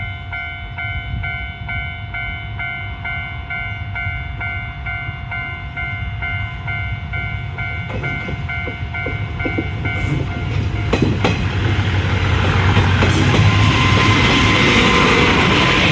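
Level-crossing warning alarm clanging in a quick, even 'kan-kan' rhythm. About ten seconds in, a train arrives and passes over the crossing, its rumble and wheel clicks building to the loudest point near the end and drowning out the alarm.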